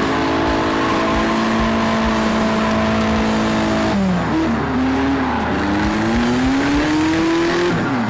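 Car engine running hard at steady revs. About four seconds in the pitch dips, then climbs steadily as the car accelerates, and drops again near the end.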